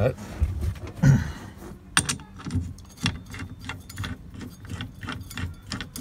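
Light metallic clicking and jangling, a few clicks a second, as the steering wheel nut is spun onto the steering column of a 1971 VW Beetle by hand. There is a louder knock about a second in.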